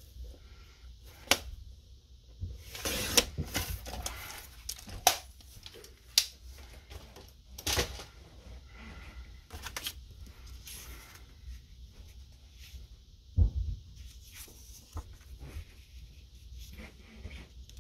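Fiskars paper trimmer cutting kraft cardstock, with a rasping stretch about three seconds in, followed by cardstock sheets being handled and laid down on a cutting mat: scattered clicks and taps and one low thump near the end.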